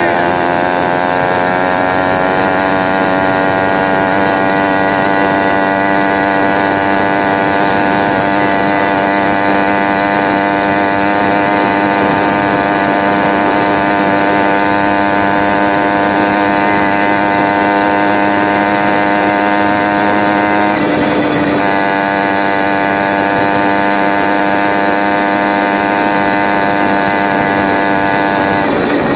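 BBR Tuning 66/80cc two-stroke bicycle engine running steadily at cruising speed while the bike is ridden, a constant buzzing drone that briefly wavers about three-quarters of the way through.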